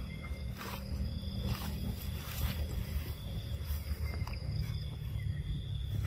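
Steady low rumble with insects trilling at a steady high pitch in the background.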